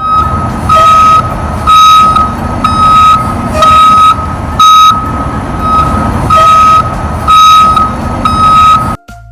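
Vehicle reversing alarm beeping about once a second, one steady high tone per beep, over a continuous low engine rumble.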